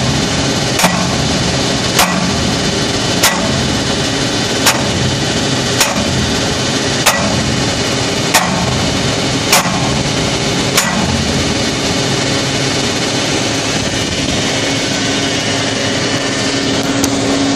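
Sledgehammer blows on steel oilfield pipe fittings, knocking a hammer union loose: nine sharp strikes about one every 1.2 seconds, stopping about 11 seconds in. A steady drone of running machinery goes on underneath.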